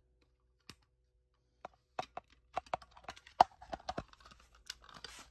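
Irregular clicks and light knocks of a plastic smoke alarm being handled. There is a single click about a second in, and the clicks come thicker from about two seconds on.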